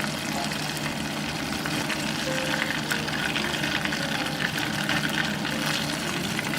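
Flour-coated chicken drumsticks deep-frying in hot oil: a steady sizzle full of small crackles.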